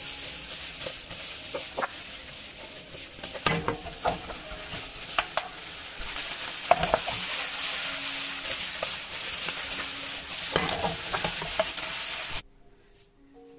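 Water bamboo (makomotake) wedges sizzling in sauce in a non-stick frying pan, with a wooden spatula scraping and tapping the pan as it stirs them. The sizzling cuts off suddenly near the end, and soft music follows.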